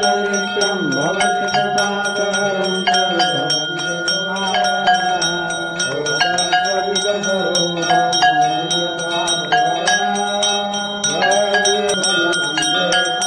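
Hindu evening aarti being sung: a voice wavering in pitch over a steady low drone, with a hand bell rung continuously in quick strokes.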